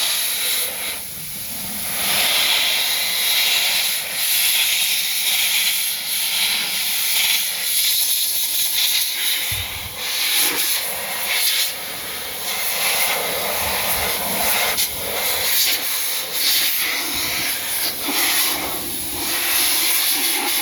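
Adam's Air Cannon blower sending out a steady rushing hiss of air that swells and dips in loudness every second or two.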